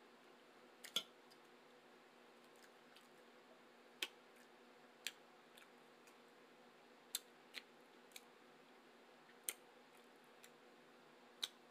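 Aluminium foil around food crinkling in short, sharp crackles every second or two as it is handled and opened, over near silence.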